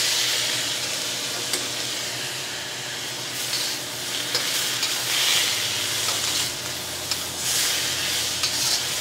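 Rice noodles sizzling in hot oil in a carbon steel wok with shiitake mushrooms and carrots. The sizzle is loudest as the noodles first go in, then steady with small surges as they are tossed, with a few light clicks of the metal spatula against the wok.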